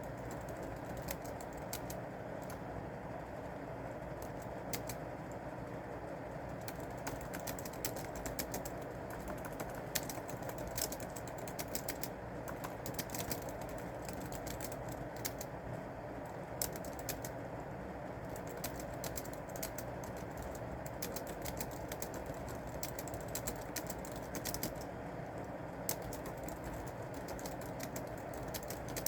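Typing on a keyboard: irregular runs of light key clicks with short pauses, over a steady background hiss.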